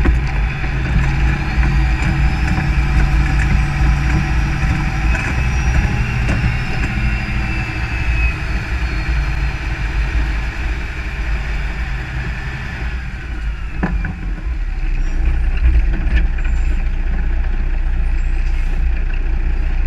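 Large diesel harvest machinery running steadily, with a high whine that slowly rises and then falls away about thirteen seconds in.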